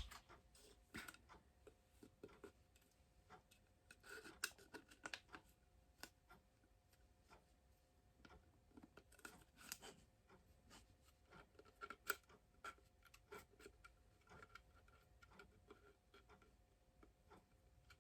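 Faint, scattered clicks and short scrapes of a plastic glowstick being handled.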